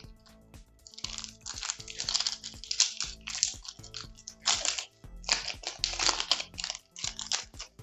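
Foil booster pack wrapper crinkling and tearing in irregular crackly bursts as it is ripped open by hand. Quiet background music runs underneath.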